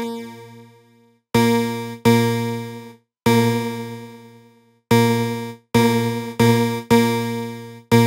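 Kilohearts kHs ONE software synthesizer playing the same low note seven times, each a bright tone with a sharp start that fades away over about a second, while the patch's chorus rate and width are being adjusted.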